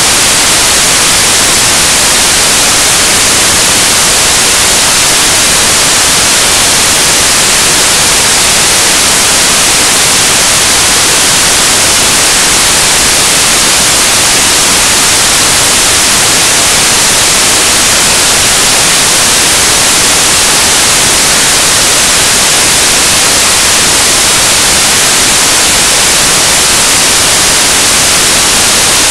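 Loud, steady static hiss, even and unchanging throughout, with no other sound heard through it.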